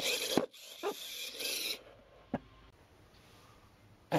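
A small homemade robot on a wheel, moving with a rasping, scraping noise in several short bursts over about two seconds, then a single click.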